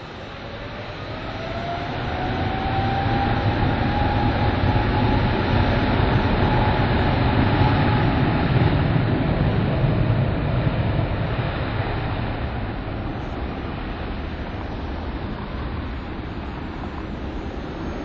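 Boeing 777's twin GE90 turbofans spooling up to takeoff thrust: a whine that rises in pitch over a deep roar, building over the first few seconds, holding, then fading as the jet rolls away.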